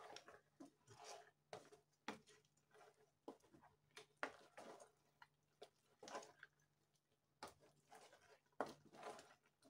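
Faint, irregular scrapes and light knocks of a long spoon stirring thick leafy soup in a large metal pot.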